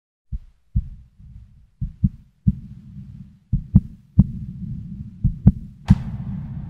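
Heartbeat sound effect: low, muffled thumps in groups of two or three, about every second and a half. A sharper, brighter hit comes near the end.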